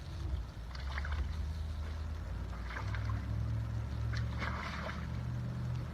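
A steady low engine hum, with a few brief splashes of water and mud.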